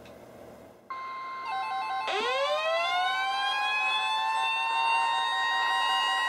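Several NOAA weather radio receivers alarming at once for an incoming warning. A steady alert tone starts about a second in, a beeping alarm joins half a second later, and a siren-style alarm winds up in pitch about two seconds in and then holds steady alongside them.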